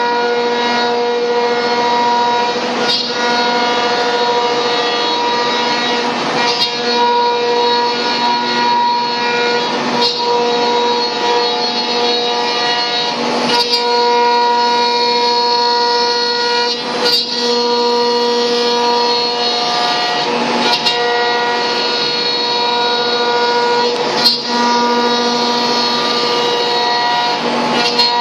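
CNC router spindle whining at a steady high speed while machining an MDF cabinet door. The whine dips briefly every few seconds with a short scraping burst as the cutter changes pass.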